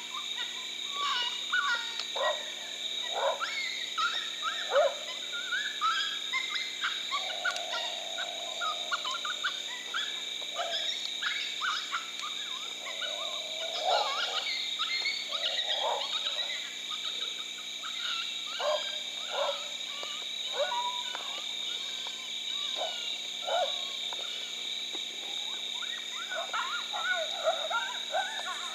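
A chorus of many short, overlapping animal calls that bend in pitch, with a steady high-pitched hum underneath.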